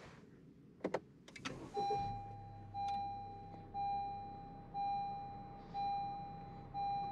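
Push-button start of a 2021 Honda Civic's 1.5-litre turbocharged four-cylinder: a couple of clicks, the engine catching about a second and a half in and settling to a low idle. Over it a dashboard warning chime rings six times, about once a second.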